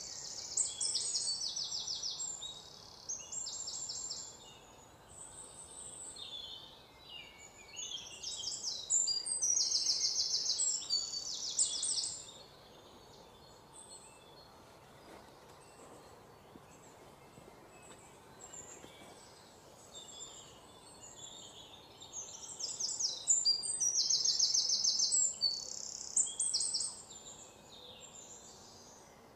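Birds singing in bouts of rapid, high trills. Faint steady background noise fills the pauses between the bouts.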